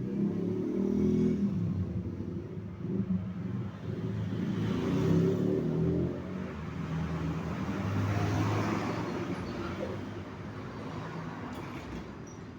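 A motor engine running, its sound swelling louder about five seconds in and again around eight seconds, then fading.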